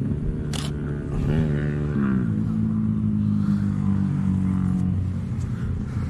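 A motor vehicle's engine running, its pitch rising and then falling between about one and two seconds in, then holding steady before easing off near the end. A single sharp camera shutter click comes just after the start.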